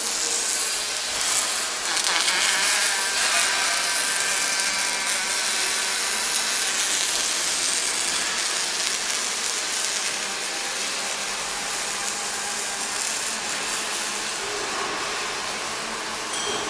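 Welding arc hissing and crackling steadily while a steel frame is welded.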